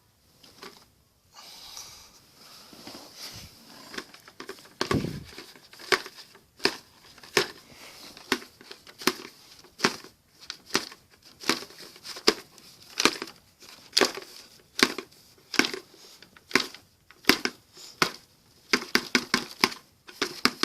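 A fire alarm pull station being tested by hand: faint handling, then a long run of sharp clicks about every 0.8 s, coming faster near the end.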